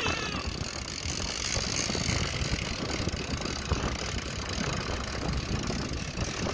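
Boat engine running steadily, with wind and sea noise on the microphone.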